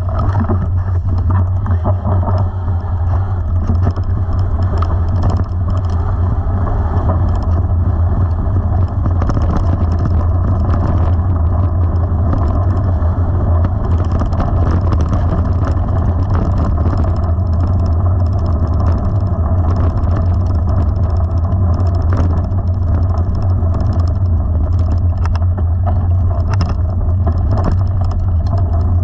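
Steady wind rumble on the microphone and tyres crunching over gravel as a mountain bike rides a gravel track, with scattered small clicks of loose stones and bike rattle.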